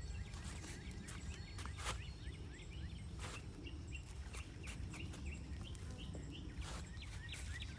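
Birds chirping in scattered short calls over steady outdoor background noise, with a few brief knocks here and there.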